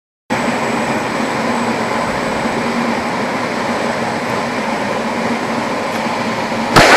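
A loud, steady, even noise cuts in suddenly after silence and holds unchanged, with a faint high whine in it. Near the end, a sharp knock and a loud voice break in.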